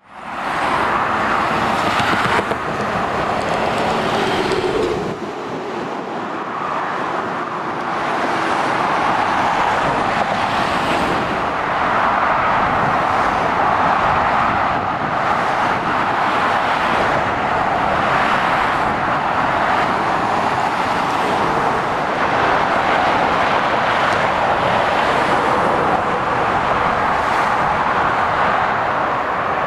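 Continuous road traffic noise from lorries and cars passing on a dual carriageway: a steady rush of tyre and engine noise that swells gently as vehicles go by.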